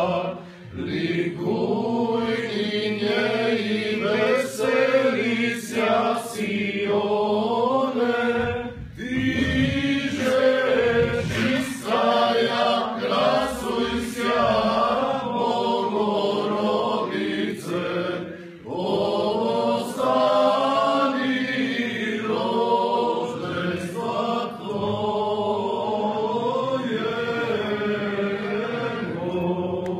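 A group of people singing an Orthodox church hymn together in phrases, unaccompanied, with a brief pause for breath between phrases.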